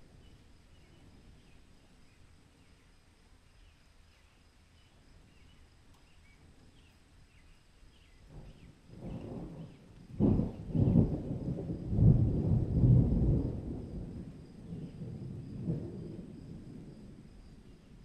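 A roll of thunder: a low rumble builds about halfway through, breaks with a sharp crack, rumbles loudest for a few seconds and dies away near the end. Faint high chirping sounds thinly in the first half.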